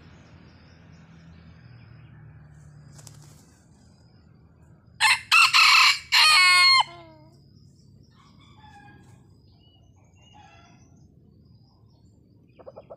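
Red junglefowl rooster crowing once about five seconds in: a short crow of about two seconds that breaks off abruptly. Faint small-bird chirps follow, and a quick run of short clucks comes near the end.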